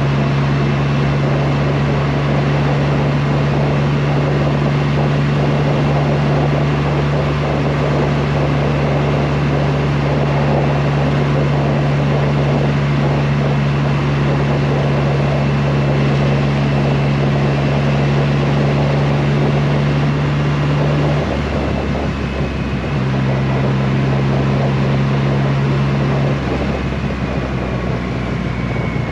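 Triumph Rocket 3 R's inline-three engine running at steady cruising revs under way, with wind and tyre noise. About two-thirds of the way through the engine note drops as the throttle eases, picks up again a couple of seconds later, and settles lower near the end.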